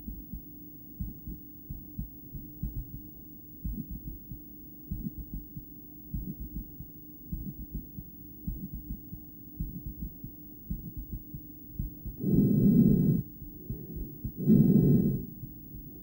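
A woman's heartbeat heard through a stethoscope on her chest: soft, regular low lub-dub thumps. Near the end, two loud breaths rush over the chest piece, louder than the heartbeat.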